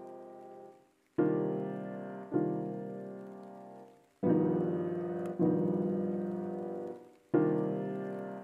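Background piano music: slow chords struck one after another, each ringing and fading away, with short breaks between phrases.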